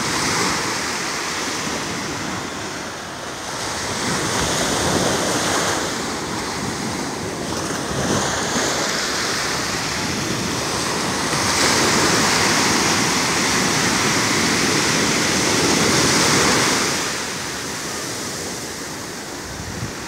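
Small Atlantic waves breaking and washing up on a sandy beach: a continuous surf rush that swells and eases every few seconds, with its longest, fullest surge a little past the middle.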